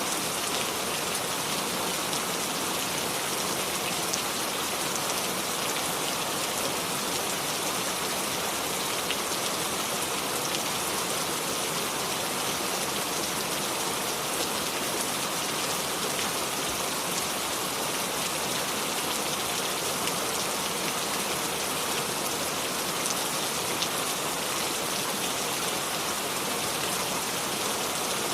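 Steady rain falling, an even hiss of many drops with faint individual drop ticks and no thunder.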